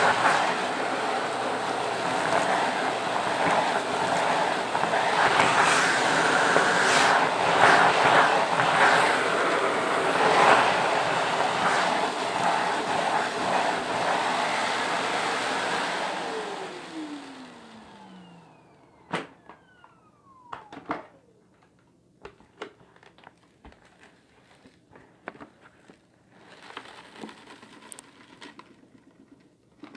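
Shark vacuum running with its hose tool on carpet, debris rattling as it is sucked up. About 16 seconds in the vacuum is switched off and the motor winds down with a falling whine. Then come scattered clicks and a short rustle as debris tips out onto the carpet near the end.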